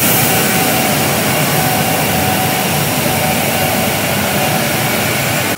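KTM Komuter electric commuter train running past the platform at close range: a loud, steady rush of noise with a faint steady whine.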